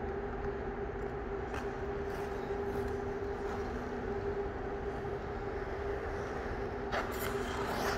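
Steady machine hum with two held tones, from the rink's equipment, and a figure skate's blades scraping the ice briefly about a second and a half in and again near the end.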